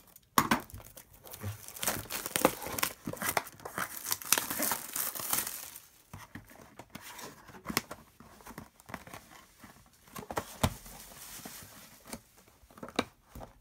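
Plastic shrink-wrap being torn and crumpled off a cardboard trading-card box, crackling irregularly and most densely in the first half. After that come fewer scattered crinkles and a few taps of the box being handled.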